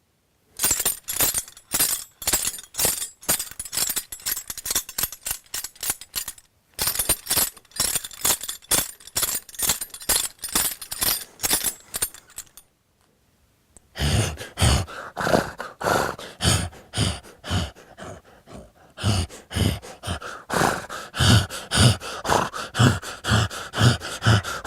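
A Foley horse bridle shaken by hand in a galloping rhythm: metal bits and buckles jingling and clinking to match recorded hoofbeats. It pauses briefly about halfway through, then resumes with heavy, evenly spaced thumps under the jingling.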